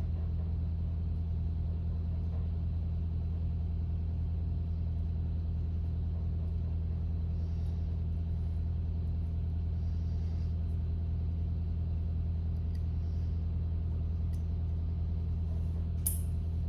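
Steady low hum at an even level throughout. Over it come a few faint, light clicks of small metal tools, from Allen keys working on the anti-walk pins of an AR9 lower, spread through the second half.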